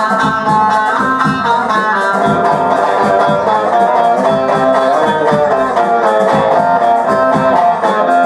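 Bağlama (long-necked Turkish saz) playing a melody with rapid plectrum picking, over a steady low bass pulse.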